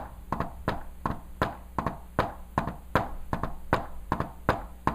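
Hand taps imitating the rhythm of a heart with an S4 gallop: a quick, rhythmic run of short taps, several a second, with a soft beat just before each louder beat. This is the 'Tennessee' cadence of an atrium contracting against a stiff, hypertrophied left ventricle.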